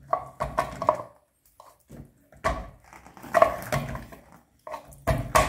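Plastic flush valve and PVC pipe fittings being handled and pushed together: a run of short knocks and clicks, brief creaks of plastic on plastic, and a couple of louder knocks near the end as the valve seats on its thread-taped connection.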